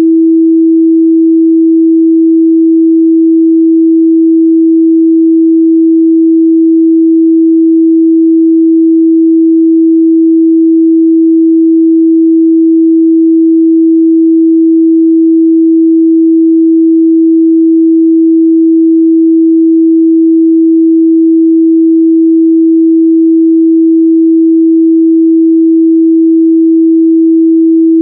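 A steady pure 326 Hz sine-wave test tone, held at an unchanging loud level.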